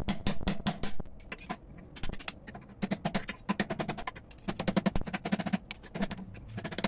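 Steel chisel stabbing and scraping at the hard, sand-filled potting inside a cheap motorcycle CDI box held in a vise. It makes rapid sharp clicking taps in bursts of several a second, with short pauses between them.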